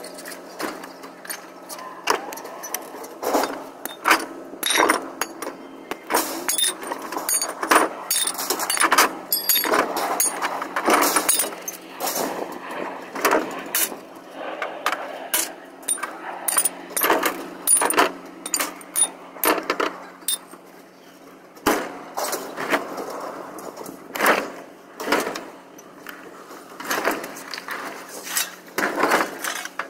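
Scrap metal handled by hand off a trailer: irregular clanks, bangs and rattles of sheet metal and appliance housings being pulled, shoved and dropped, with a steady low hum underneath.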